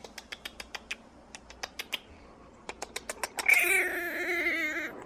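A small puppy makes a quick run of sharp little clicks, like snapping teeth. About three and a half seconds in it breaks into a louder, wavering high-pitched growl that lasts about a second and a half.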